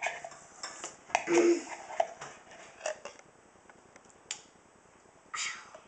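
Metal spoon clinking and scraping against a ceramic mixing bowl while ingredients are stirred and spooned in: a run of quick clicks and scrapes, a louder knock about a second and a half in, and another scrape near the end.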